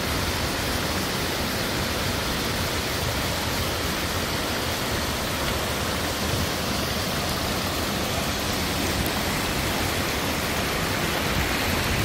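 Steady rushing and hissing of water from a small waterfall and the shallow rocky stream below it.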